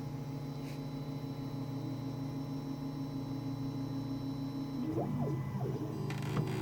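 3D printer running mid-print: its stepper motors give a steady, even-pitched hum. About five seconds in, the pitch briefly slides up and down, then settles again.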